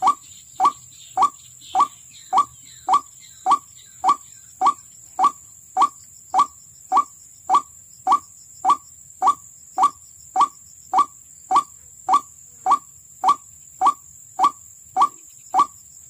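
White-breasted waterhen call, a short rising note repeated at a steady, machine-even pace of nearly two calls a second, as used for luring the bird into a trap. A steady high-pitched tone runs underneath.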